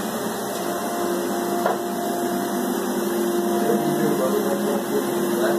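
Spray foam insulation being applied: a steady hiss with a constant motor hum underneath.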